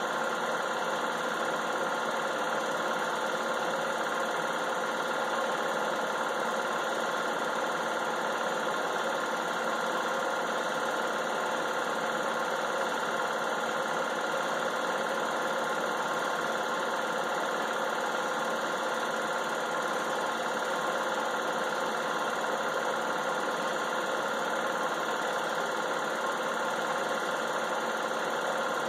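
Film projector running: a steady, unchanging whir with an even hum through it.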